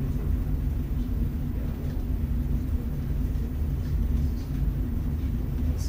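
Steady low room rumble with a faint, even hum: the background noise of a quiet computer lab.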